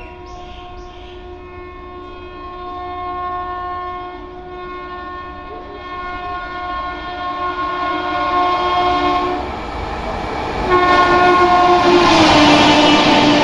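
WAP7 electric locomotive of a Shatabdi Express blowing its horn as it approaches at about 130 km/h: one long blast, a short break, then a second long blast whose pitch drops at about twelve seconds in as it passes. The rush of the train's wheels on the track builds up loudly under the second blast.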